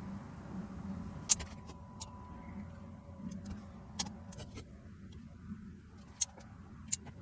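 Caulking gun clicking as its trigger is squeezed to run out CT1 sealant-adhesive, a handful of sharp clicks at uneven intervals over a low steady hum.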